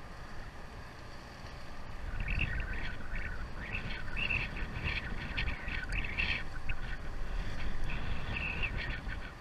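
Short, high chirping squeals, repeated in quick bunches from about two seconds in, over a low rumble of wind and boat noise that swells at the same time.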